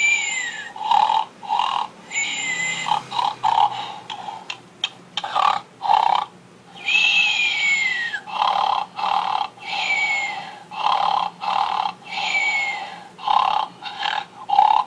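Pajama bear with a pacifier snoring in a repeating cycle: a few short snorts, then a falling whistle on the out-breath, about every two to three seconds, with one longer whistle about halfway through.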